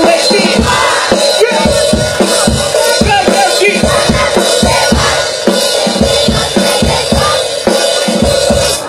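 Live concert music over a loud stage sound system, with a steady drum-kit beat and a heavy bass drum, heard from within the audience.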